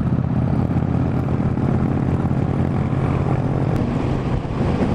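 Triumph Bonneville T100's 900 cc parallel-twin engine running steadily at highway cruising speed, heard with wind rushing past the bike.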